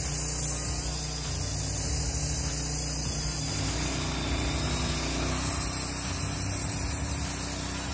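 Small gasoline engine of a manual portable band sawmill running steadily under load as the saw head is pushed through a cut in a log.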